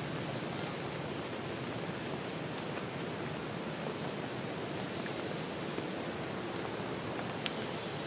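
Forest stream and small waterfall rushing over rocks, a steady even wash of water. A few high thin bird notes sound faintly about halfway through and near the end.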